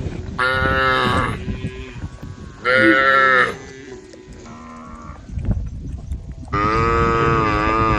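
Cattle mooing: a loud moo about half a second in, another a little before the middle, a faint one past the middle and a long moo near the end, over a steady low rumble.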